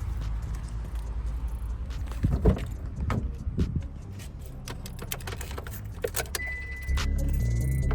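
Car keys jangling and clicking in a few short bursts over a low steady rumble, with a louder steady hum coming in near the end.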